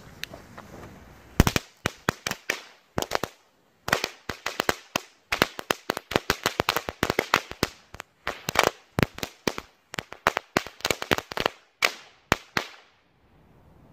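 A small Category 1 ground firework hisses briefly as its fuse burns. About a second and a half in it breaks into a rapid string of sharp crackling pops, several a second, with a short pause about three seconds in. The crackling stops about a second before the end.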